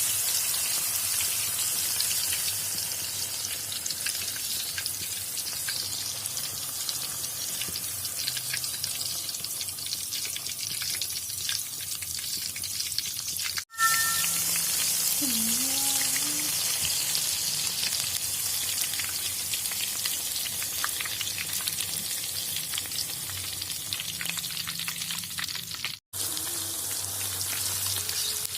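Beaten egg frying in hot oil for telur gulung, a steady sizzle with fine crackling. It cuts out for an instant twice.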